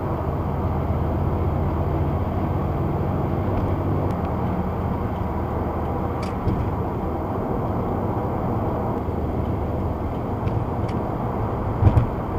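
Car driving at highway speed, heard from inside the cabin: a steady hum of engine and tyre road noise. A short low thump comes near the end.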